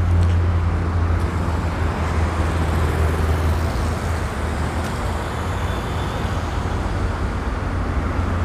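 Road traffic: car engines running and cars driving past in a busy parking area, as a steady noise over a low hum.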